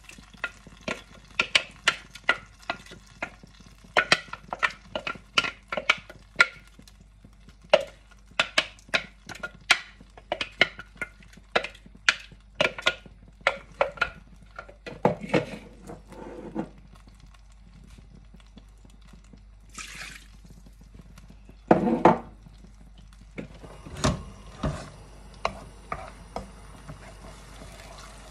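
A wooden spoon knocking and scraping against a plastic food processor bowl, with many sharp taps in quick succession for about sixteen seconds as a thick tomato and onion paste is scraped out into a wok. Later come a few louder knocks as the paste is stirred in the pan, with a light sizzle of it frying in hot oil near the end.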